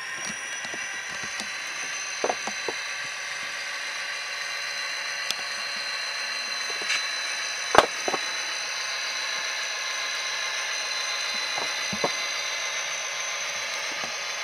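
HO-scale Athearn SD40T-2 model diesel locomotive running along the track: a steady high whine from its motor and drive, with a few sharp clicks, the loudest about eight seconds in.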